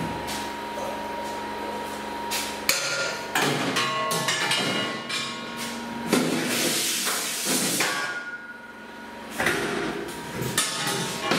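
Stainless steel cheese-making equipment clanking as it is handled: a string of sharp metal knocks and clatters, several ringing on briefly, with a rushing hiss for a couple of seconds in the middle.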